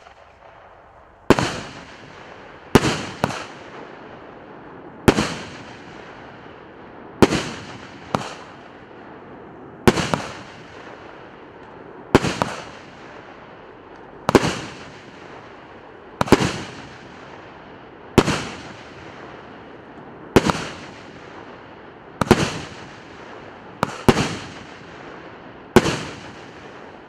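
Consumer firework battery firing: about sixteen sharp bangs, roughly one every two seconds and a few in quick pairs, each trailing off, with a steady hiss between the shots.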